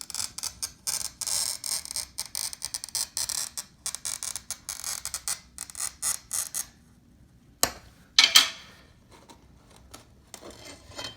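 Glass cutter's wheel scoring a curved line across sheet glass: a fast, gritty crackling hiss for about six and a half seconds, then after a pause two short sharp scratches about half a second apart, as the score is run in from the other end.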